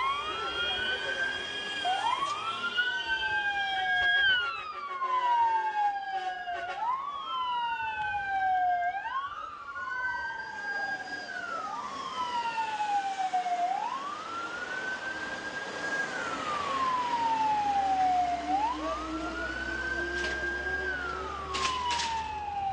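Emergency vehicle sirens wailing, at least two overlapping, each rising and falling in pitch every few seconds. A low engine rumble joins about two-thirds of the way in.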